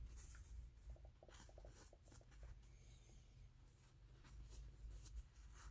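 Near silence with faint rustling and rubbing from a blue shop towel wiping excess boron nitride paste off a 3D-printer hotend's heater block, in a few short strokes.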